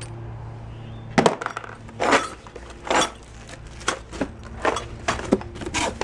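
Small loose metal hardware and a cardboard box being handled. After about a second come a series of irregular sharp clinks, knocks and scrapes.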